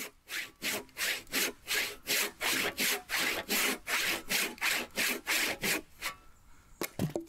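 Hand saw cutting through wood in quick, even back-and-forth strokes, about three a second, stopping about six seconds in; a couple of sharp knocks follow near the end.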